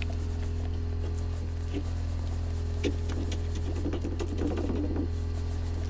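Steady low hum of a running generator, with light taps, clicks and scraping as epoxy resin and thickener are stirred in a plastic mixing cup.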